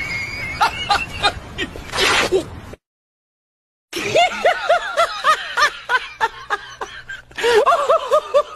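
A few clicks and knocks, then a second of dead silence, then a person laughing in rapid high-pitched squeaks, about four a second.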